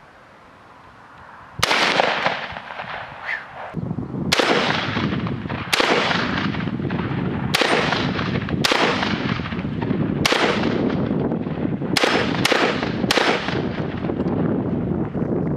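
UTAS XTR-12 semi-automatic 12-gauge shotgun firing about nine shots at an irregular pace, each with a long echoing tail. Three come in quick succession about half a second apart near the end.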